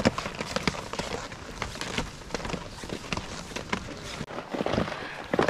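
Skiers skinning uphill on packed snow: skis with climbing skins shuffling over the snow, with irregular crunches and clicks from ski-pole tips and skis on the trail.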